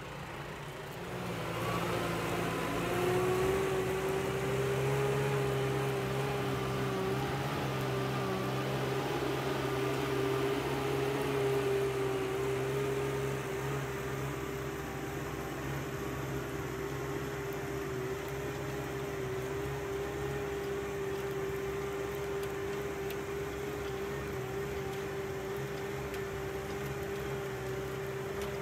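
Tractor engine running steadily with its machinery droning at a constant pitch. It builds up over the first few seconds, then holds level.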